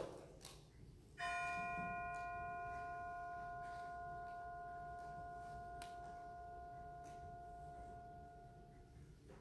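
A bell struck once, its ring dying away slowly over about eight seconds, sounded after the first name in a reading of the names of the dead.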